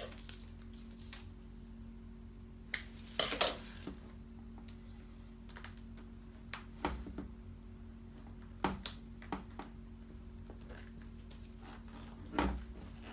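Scattered handling noises as vinyl stripe decals are pressed onto a plastic football helmet shell by hand: short clicks, taps and crinkles of decal backing, the loudest cluster about three seconds in. A faint steady hum runs underneath.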